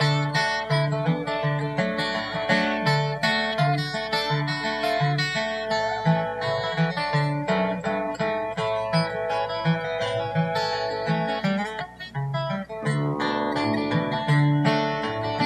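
Acoustic guitar flatpicking a bluegrass instrumental introduction, a steady picked bass line under the melody, with fiddle in the string-band accompaniment.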